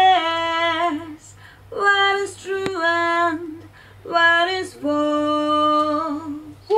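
A woman singing a lead vocal take solo into a studio microphone: several short phrases of held notes with brief pauses between them.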